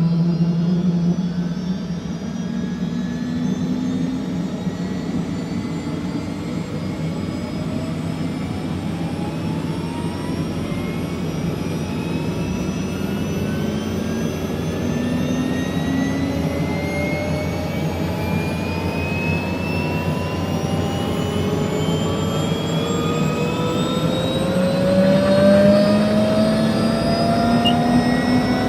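Helicopter running: a steady low drone with a whine that rises slowly and steadily in pitch, getting a little louder near the end.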